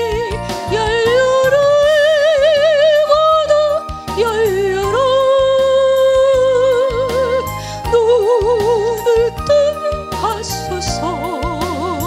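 A woman singing a Korean gospel song with strong vibrato on long held notes, over instrumental accompaniment.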